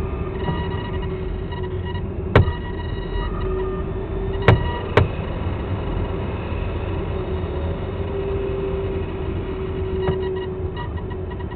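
Steady rush of airflow heard from inside the canopy of a 1/3-scale Ka 6E model glider in flight, with a steady hum beneath it. Three sharp clicks about two, four and a half and five seconds in, and a faint one near the end.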